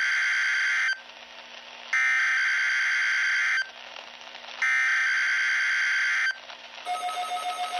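NOAA Weather Radio broadcasting the SAME digital header of a required weekly test through a weather alert radio's speaker: harsh, buzzy bursts of data tones, each under two seconds, with about a second of radio hiss between them. Near the end a pulsing electronic beep starts.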